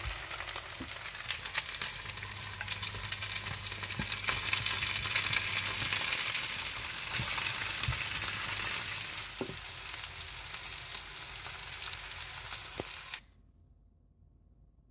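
Veal cutlets and sliced porcini mushrooms sizzling and crackling in hot oil in a non-stick frying pan, with clicks and scrapes of tongs and a wooden spatula stirring them. The sizzling cuts off suddenly near the end.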